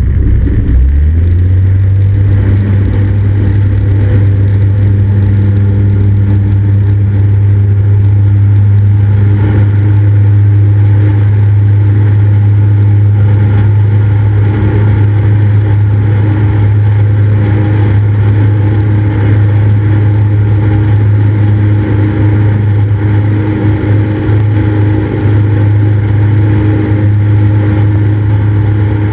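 Cessna 172's piston engine and propeller running with a loud, steady low drone that settles in about a second in.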